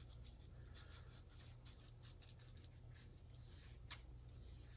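Near silence: a low steady room hum, with faint scratches and a couple of soft ticks from a paintbrush working paint onto a cork decoy, the clearest tick near the end.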